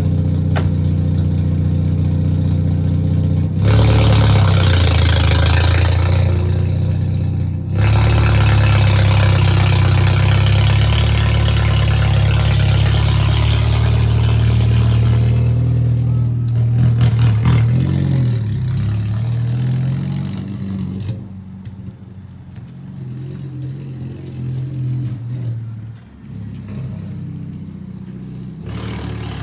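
Hyundai Veloster N's turbocharged 2.0-litre four-cylinder running with the exhaust removed. It runs steadily, gets much louder about three and a half seconds in with a brief break near eight seconds, holds there until about sixteen seconds, then drops back to a quieter steady run.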